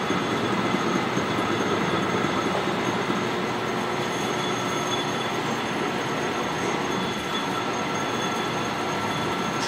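Metal lathe running while its cutting tool turns down schedule 40 pipe supported in a steady rest: a steady machining noise with a faint high whine held throughout.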